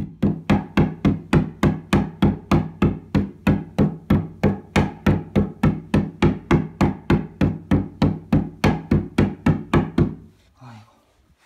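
Mallet repeatedly striking the edge of an IKEA Kallax particleboard shelf panel, hollow wooden knocks at a steady three or so a second, driving the panel further onto its wooden dowels. The blows stop about ten seconds in.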